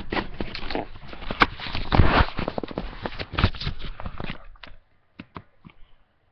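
Rustling and a quick run of knocks and bumps close to the microphone, as things are handled near a webcam. It stops about 4.7 seconds in, and a few light clicks follow.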